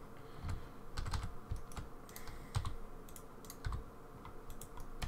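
Computer keyboard keys being pressed in short, irregularly spaced taps.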